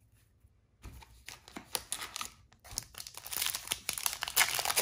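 Foil wrapper of a Fortnite Series 2 trading-card pack crinkling as it is picked up and torn open by hand. There are scattered crackles about a second in, then a dense run of crinkling and tearing from near the three-second mark that gets louder toward the end.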